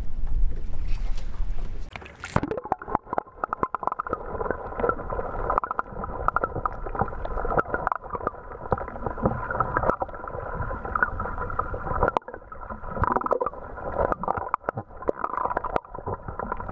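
Wind rumbling on the microphone, then about two seconds in an abrupt cut to muffled underwater sound from a submerged camera. Water sloshes against the housing, with many small clicks and knocks.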